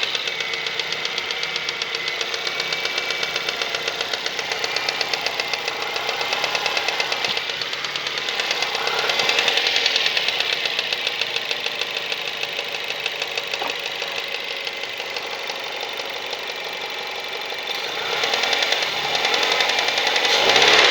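Mazda 3 1.6 engine running with a fast, even ticking knock from the intake manifold flaps, the sign of worn or loose flaps in the manifold. It gets louder briefly about ten seconds in and again near the end.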